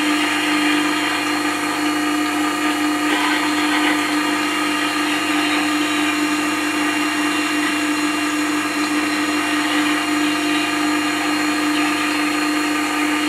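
Record Power WG250 wet stone grinder running steadily: a constant motor hum with a hiss across the upper range as a spindle roughing gouge's bevel is ground against the turning stone.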